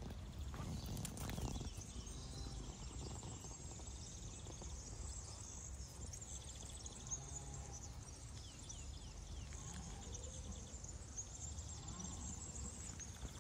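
Outdoor ambience: a steady low rumble like wind on the microphone, with faint high chirps and trills.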